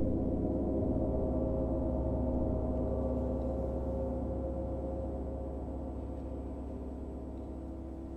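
Several Paiste Bronze gongs ringing together after mallet strikes: a dense, sustained wash of low rumble and shimmering overtones that slowly fades.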